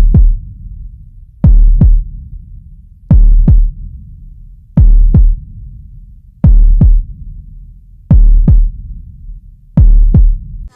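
Electronic pop music break: deep drum-machine bass kicks in pairs like a heartbeat, seven pairs about every second and a half, with a low rumble between them.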